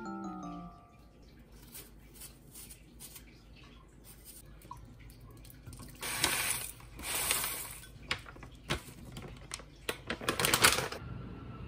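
Almond milk poured from a carton into a glass bowl, a splashing pour about six seconds in, followed by cereal flakes tipped in, many small clicks and a dense rattle of flakes landing in the bowl near the end.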